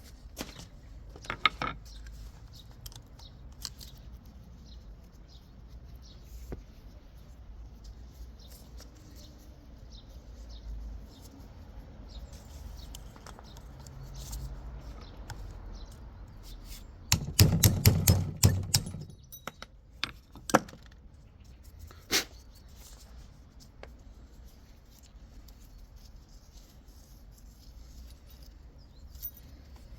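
Metal parts of a five-speed robotized gearbox being handled during disassembly: scattered clinks and knocks, with a longer bout of clattering just past the middle.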